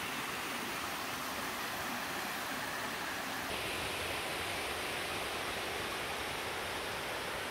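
Shallow stream water rushing steadily over a bed of loose landslide rock and gravel. The sound turns a little brighter about halfway through.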